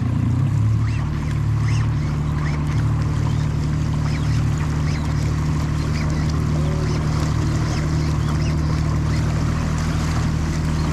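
Mercury outboard motor running steadily with a low hum, with water washing past the hull.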